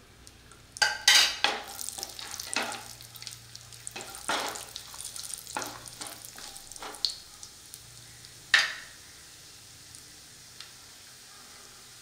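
Cashew nuts frying in hot ghee in a pan: a sizzle as they go in, then a spatula stirring them in short separate strokes. The stirring stops for the last few seconds, leaving a faint steady sizzle.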